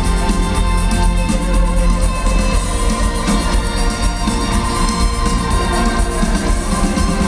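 Amplified live rock band playing loud, with a trumpet line over drums, guitar and keyboards.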